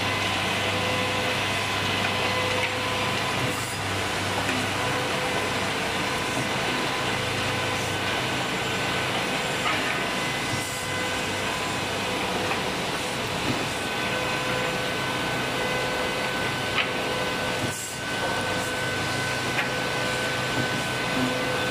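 Automatic wood cutting, drilling and dowel-inserting machine running: a steady motor hum with a high whine, and a couple of short clicks in the second half.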